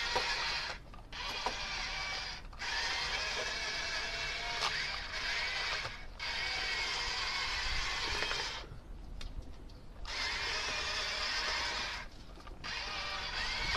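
Radio-controlled toy tank's electric drive motors and gearbox whirring as it drives, cutting out briefly about five times when it stops, the longest pause lasting over a second.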